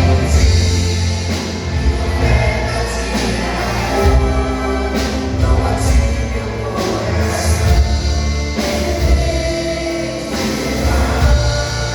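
Church vocal group singing a gospel worship song over band accompaniment with a strong bass line.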